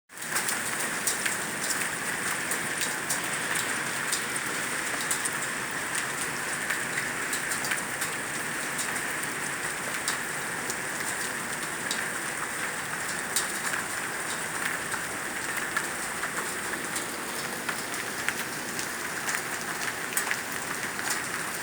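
Hail and rain coming down in a steady hiss, with many scattered sharp ticks of small hailstones striking hard surfaces.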